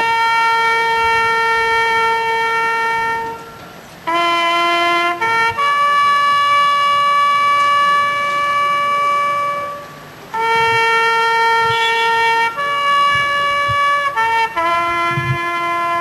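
Solo trumpet playing a slow ceremonial military call. It is built from only three bugle notes: long held notes linked by short pickup notes, with two brief pauses.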